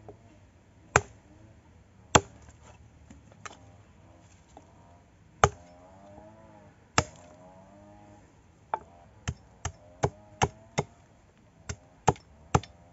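A small hatchet chopping a thin wooden pole laid across a log, a dozen or more sharp chops. They come a second or two apart at first, then faster, two or three a second, in the second half.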